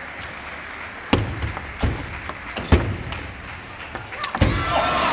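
Table tennis ball knocked back and forth in a rally, a series of sharp clicks of ball on racket and table, the loudest about a second apart. Near the end the crowd noise swells.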